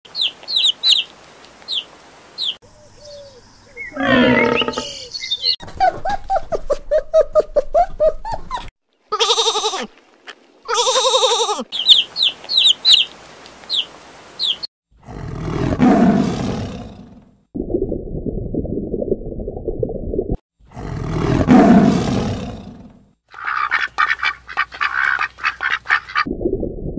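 A string of different animal calls cut one after another. High peeping of young chicks comes at the start and again about halfway. Long drawn calls fall in between, and two long loud roars that swell and fade come in the second half.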